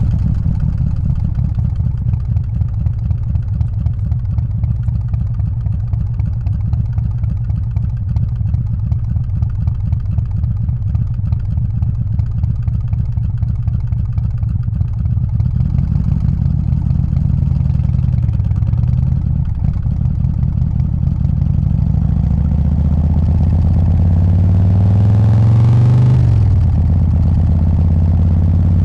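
Harley-Davidson Softail's 124 cubic inch S&S Evo V-twin running on the move, a steady low pulsing rumble. Near the end it revs up for a few seconds, then the pitch drops off suddenly.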